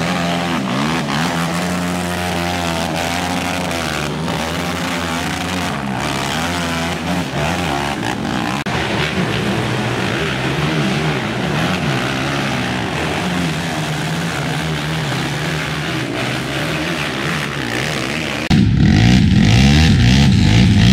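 Racing ATV engines revving, the pitch rising and falling over and over as the quads are worked through the trail. Near the end the sound cuts suddenly to a louder, different mix.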